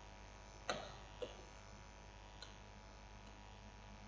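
Quiet room tone with a steady low hum, broken by a few soft clicks, the clearest about three-quarters of a second in and a fainter one about half a second later.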